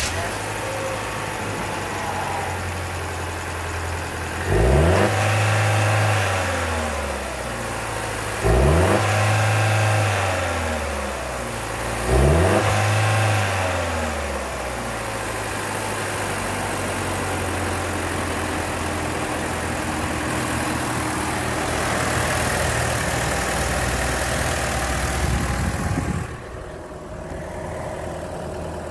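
Holden Trax 1.4-litre four-cylinder petrol engine idling with the bonnet open, blipped three times, each rev rising quickly and falling back to a steady idle. Near the end the engine sound becomes noticeably quieter.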